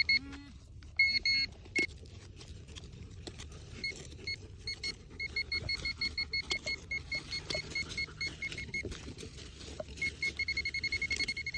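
Handheld metal-detecting pinpointer beeping in quick pulses, about four a second, in stretches. Near the end it goes to one steady held tone as the probe closes in on a buried target. Soft scraping and clicks of digging in soil go on underneath.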